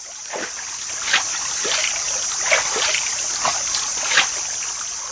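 Light splashes in shallow paddy water, about seven short splashes at uneven intervals like someone wading or moving through the water, over a steady high hiss.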